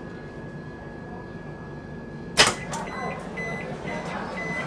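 A train's automatic passenger door releasing with one loud clunk about halfway through, followed by a run of short high warning beeps, about three a second, as the door stands open. A steady faint high whine and a low rumble underlie it before the clunk.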